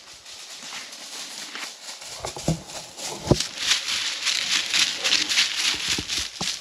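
Footsteps and a running hound crunching through dry leaf litter: a fast run of rustling, crackling strokes that starts about two seconds in, with a few dull knocks among them.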